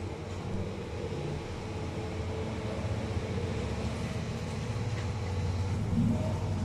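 Steady low rumble with a hum, like an engine or machinery running, with no clear rhythm.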